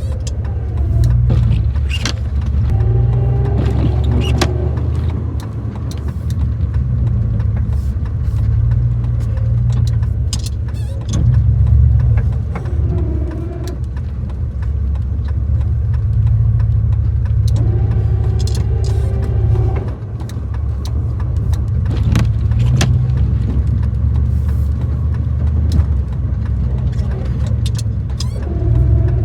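Gas three-quarter-ton pickup truck's engine running steadily under plowing, heard from inside the cab as a low drone. Scattered clicks and knocks run through it, and a few short higher hums come and go.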